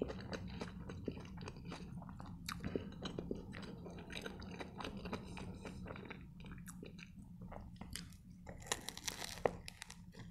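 Close-miked chewing of a turkey shawarma, with many small wet mouth clicks. Near the end, a fresh bite into the toasted wrap gives a louder cluster of crunching crackles. A steady low hum runs underneath.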